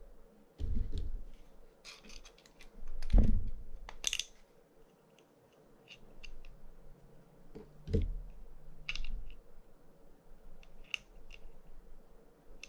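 Light metallic clicks and taps from handling a brass fishing-reel spool, its bearing and a small screwdriver, with two louder dull knocks, about three and eight seconds in.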